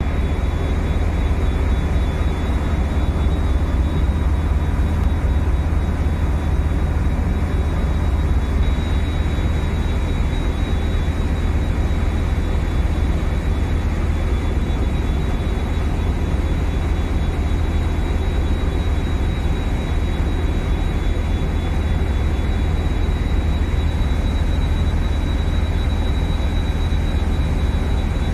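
A small boat's engine running steadily underway, a loud low drone with a faint steady high whine above it.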